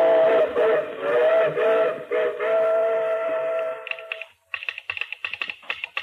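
Steam locomotive whistle sounding one long chord of several notes, wavering briefly a couple of times and cutting off about four seconds in. A fast clatter of sharp clicks follows.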